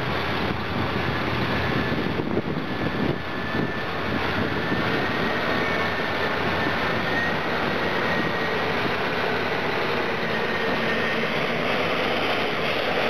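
Twin-engine CAT 657E wheel tractor-scraper driving past close by, its diesels running steadily. A faint high whine rises slowly through the middle.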